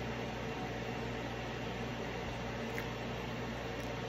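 A steady low mechanical hum with a constant hiss, like a running appliance, and one faint tick about three seconds in.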